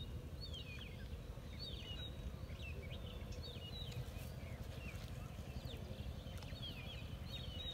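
Small birds chirping over and over in short, falling calls, over a steady low rumble.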